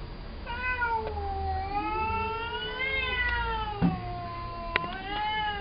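Domestic cat caterwauling: one long, wavering yowl that rises and falls in pitch, starting about half a second in and still going at the end. It is the hostile yowl of a cat upset at its sister, whom it does not recognise in her cone collar. Two brief sharp knocks in the second half.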